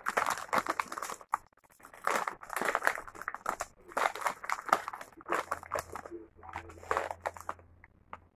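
Plastic food containers and tortilla chips being handled at a table: a run of irregular crackling, crinkling rustles.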